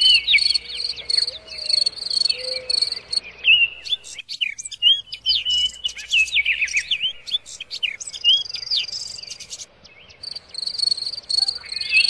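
Songbirds chirping in quick notes that sweep up and down, over an insect's high, rhythmic pulsing call that is heard at the start and again near the end.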